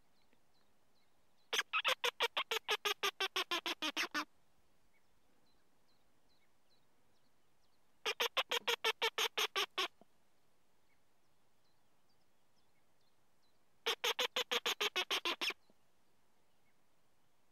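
Trøndermusa mouse-squeak fox call worked in three bursts of rapid squeaks, about six a second. Each burst lasts about two seconds and drops in pitch as it goes.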